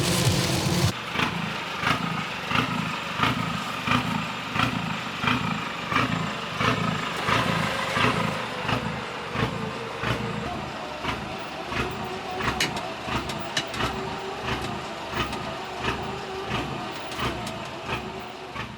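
Ute driving with a loaded car trailer in tow: a steady drivetrain hum that slowly shifts in pitch, under a regular thumping and clatter about one and a half times a second. It fades away near the end.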